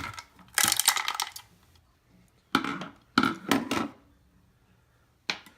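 Small metal rifle parts clinking and rattling in a few short bursts as the stock is worked off a GSG-5 .22 rimfire rifle. The rattle comes from the rifle's breech fixing bolt, which has worked loose.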